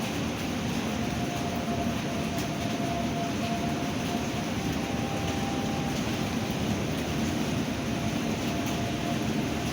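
Steady roar of a storm, wind and heavy rain, heavier in the low range. A faint thin whine comes and goes over it.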